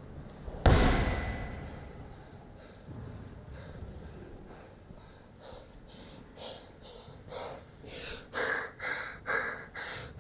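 A medicine ball dropped onto a rubber gym floor lands with one heavy thud less than a second in, ringing on briefly in the hall. Then comes hard panting from an athlete out of breath after a workout, about two breaths a second, growing louder near the end.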